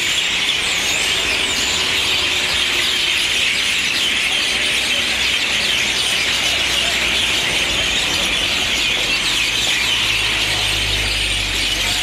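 A large flock of small birds gathering to roost in street trees, a loud, unbroken din of chattering and chirping. A low rumble joins in about ten seconds in.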